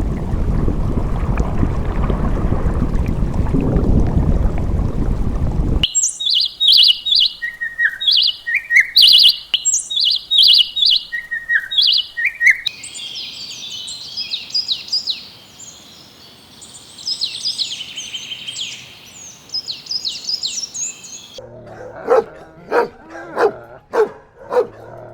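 A string of separate animal sound clips: a loud low rumbling noise for about six seconds, then a bird repeating a short chirping phrase, then faster high chirping, and in the last few seconds a dog barking about twice a second.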